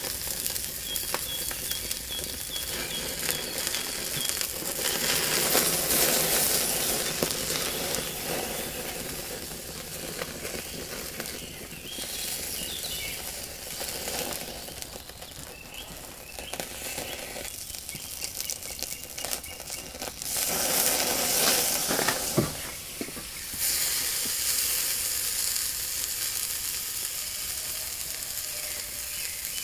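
Tomahawk steak sizzling on the grate of a cast-iron charcoal grill. The sizzle is steady and swells louder twice, about five seconds in and again a little past twenty seconds.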